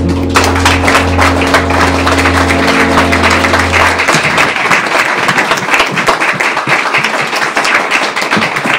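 Music: a held low chord that stops about four seconds in, over a dense, fast percussive clatter.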